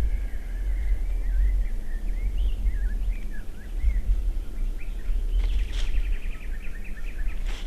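Songbirds singing and chirping in the early morning, with a steady low rumble underneath; a rapid trill of evenly spaced notes comes in about two thirds of the way through.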